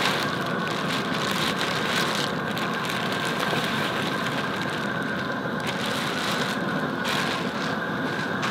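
Propane outdoor cooker burner running steadily under a pot of boiling water, with plastic-bag crinkling as head-on shrimp are emptied into the pot.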